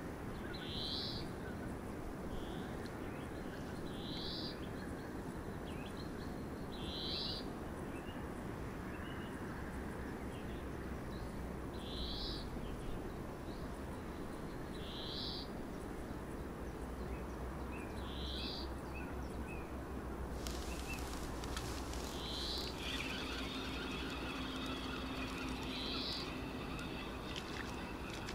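A small bird repeats a short, high call about every three seconds over a steady low background rumble. About two-thirds of the way in, a faint hiss joins.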